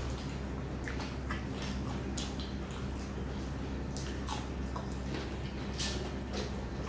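Wet eating sounds: mouths chewing and smacking while fingers squish rice mixed with dal, heard as short irregular clicks and smacks over a steady low hum.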